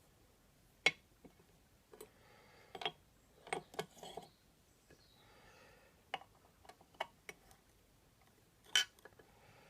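Scattered metallic clicks, clinks and light scrapes as the parts of a low angle block plane are handled and fitted together during assembly, with the sharpest click about a second in and another near the end.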